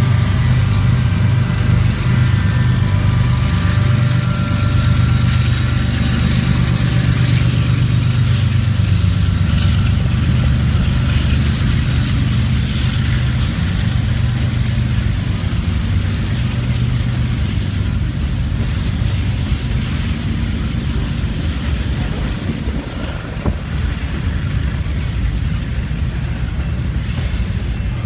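A BNSF freight train passing: a diesel locomotive's engine running with a low drone that eases off after about ten seconds, then a long string of loaded covered hopper grain cars rolling by with steady wheel and rail noise.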